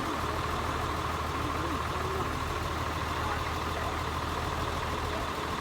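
An engine idling steadily, with faint voices in the background.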